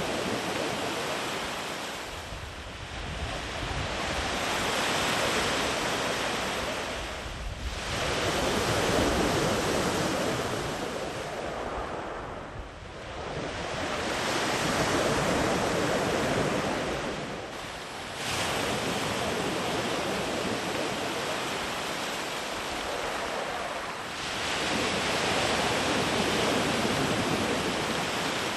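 Sea surf breaking and washing up the beach, a steady rush that surges and eases about every five seconds as each long wave rolls in.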